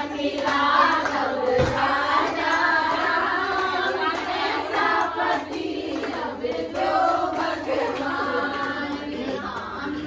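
A group of women singing a song together in chorus, with hand claps keeping time.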